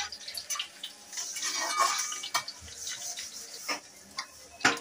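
Flat steel spatula scraping and clinking against a steel kadai as chopped garlic, green chilli and whole spices are stirred in hot oil, which sizzles with a fine hiss under the strokes.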